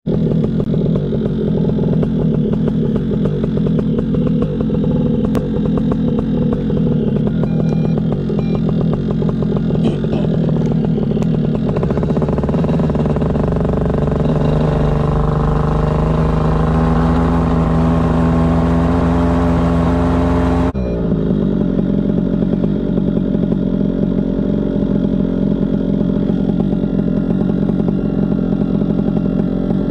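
Paramotor engine running steadily. It is then throttled up, its pitch climbing for several seconds, until the sound changes abruptly about two-thirds of the way through and it runs steadily again at a lower pitch.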